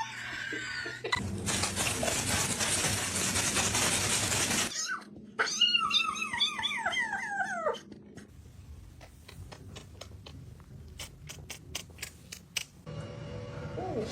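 A pet's cries: a series of falling, whining calls in quick succession, after a long rushing noise lasting about three and a half seconds. Scattered clicks follow.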